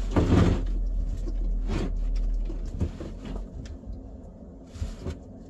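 Hands working in the wiring under a car dashboard: rustling of clothing and cables with a few light knocks and clicks, loudest in the first half second.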